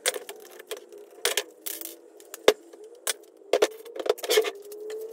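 Plastic trim and metal parts of a steering wheel being handled and pried apart: a run of sharp clicks, knocks and rattles, the sharpest knock about two and a half seconds in and a cluster of rattles near the end.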